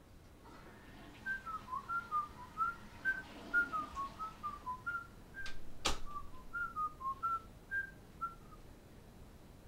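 A person whistling a tune in short, separate notes, with a single sharp click about six seconds in.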